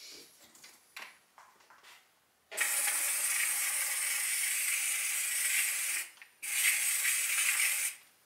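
Electrostatic Magic powder coating gun spraying, with a steady hiss of low-pressure air, about 8 to 10 psi, puffing powder onto a metal part. It is held for about three and a half seconds, stops briefly, then gives a second burst of about a second and a half. A few light handling clicks come before it.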